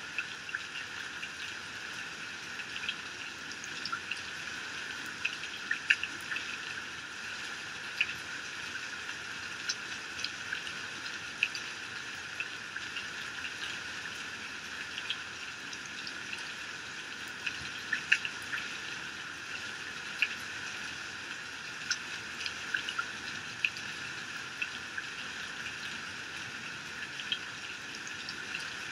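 Heavy rain falling steadily, a constant hiss with many sharp drops and splashes scattered through it.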